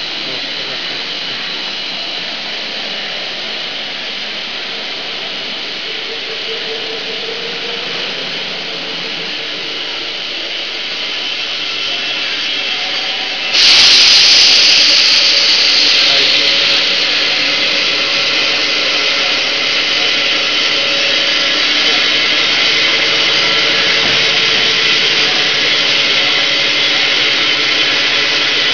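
Factory machinery in a plastic bottle blow-moulding plant running: a steady hissing din with a faint hum. About halfway through it jumps suddenly louder with a strong high hiss, which eases back over a few seconds but stays louder than before.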